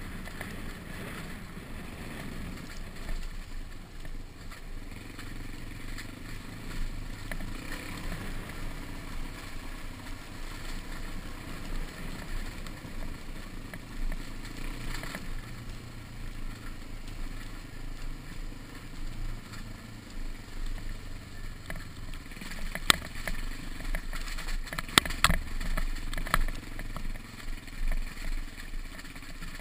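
Suzuki DR-Z dirt bike's single-cylinder engine running while riding a rough dirt track, its note rising and falling with the throttle. In the last quarter a series of sharp knocks and rattles comes over the stony ground.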